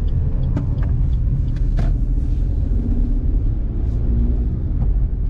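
Steady low road rumble inside a moving car, with scattered light ticks of rain hitting the car.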